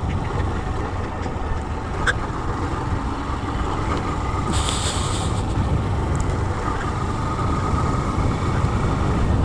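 Honda CG 160 Fan's single-cylinder four-stroke engine running at a steady cruising pace, with wind and road noise over the mic on a dirt road. There is a short burst of hiss about halfway through.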